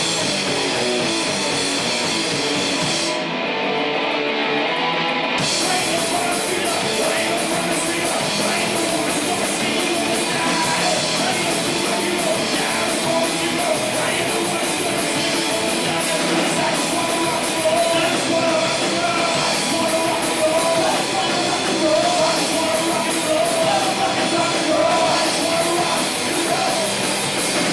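Live loud rock band playing: distorted electric guitars and a full drum kit, with a singer over the top.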